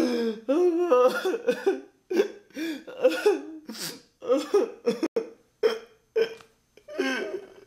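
A person's voice making short, broken vocal sounds without clear words, such as coughs, gasps and groans, with the pitch sliding up and down. The sounds stop and start every half second or so.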